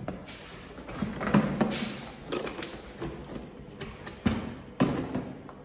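Packaging being handled and rustled while a mop is unboxed, with several sharp knocks and taps as the parts are pulled out.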